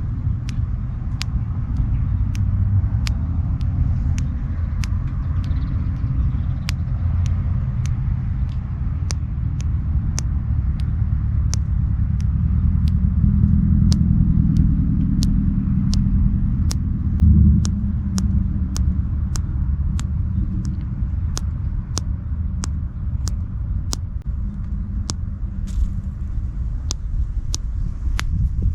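Evenly spaced sharp clicks, about three every two seconds, over a steady low rumble like a running vehicle.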